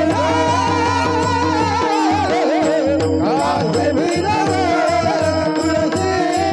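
A voice singing a devotional Marathi abhang in long, ornamented, wavering notes over a steady drone, with a regular low drumbeat underneath.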